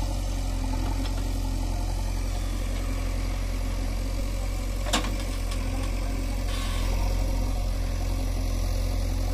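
JCB backhoe loader's diesel engine running steadily while its digging arm works, with a single sharp click about five seconds in.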